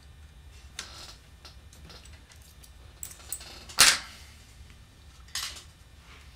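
Small metal clicks and clinks of a thin key rod being fitted into a small lathe's three-jaw chuck, with one sharp metallic clack a little under four seconds in, the loudest sound, over a low steady hum.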